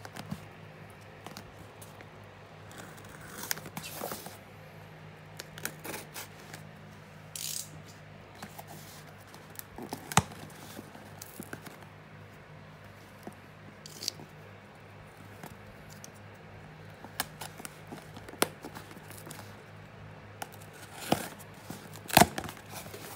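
Packing tape being picked at and torn off a cardboard box, with scattered scrapes, taps and crinkles from handling the box, and sharper clicks about ten seconds in and near the end. A steady low hum runs underneath.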